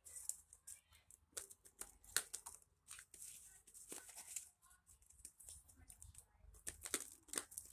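Faint, irregular rustling and light snaps of a deck of reading cards being shuffled by hand.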